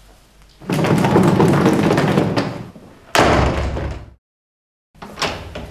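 A loud, rough noise lasting about two seconds, then a sudden single heavy thud. The sound then cuts to dead silence for a moment, and a few light clicks follow.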